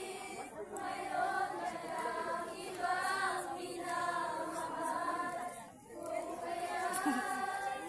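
A group of scouts singing together in unison, holding long notes, with a short break about two-thirds through.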